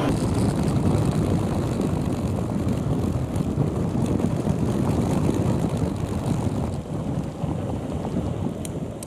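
Steady rushing wind and road rumble of a vehicle moving at speed, with no music or voices, fading away near the end.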